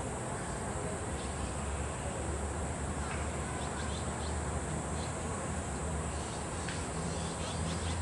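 Outdoor ambience: a steady hiss and low hum with faint, short bird chirps scattered through, more of them near the end.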